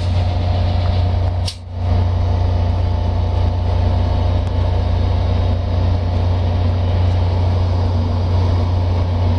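VIA Rail F40PH-2 diesel locomotives standing and running steadily, their EMD two-stroke V16 engines making a loud, steady low drone. The sound dips briefly about one and a half seconds in.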